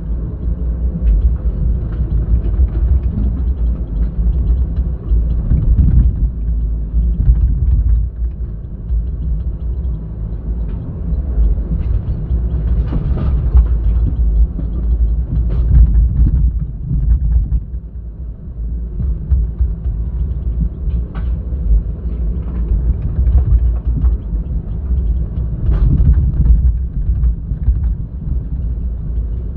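Heavy machinery diesel rumble from an excavator working at a dump truck, rising and falling in loudness, with a few sharp knocks spread through.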